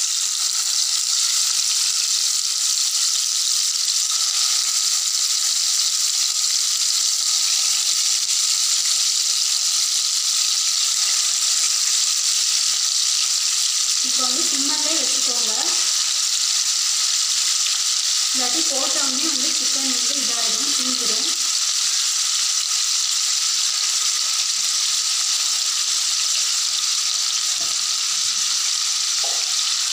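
Marinated chicken pieces sizzling steadily as they shallow-fry in hot groundnut oil in a kadai.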